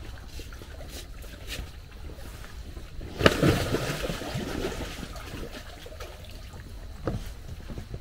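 A sudden splash about three seconds in, followed by a second or so of sloshing water.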